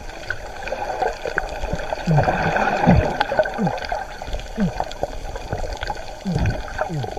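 Water gurgling and bubbling, heard muffled through a submerged camera, with short downward-sliding swoops every second or so.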